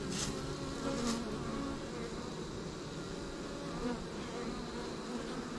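Honeybees buzzing at the entrance of a hive, with one wingbeat hum after another coming close and fading as foragers fly in and out.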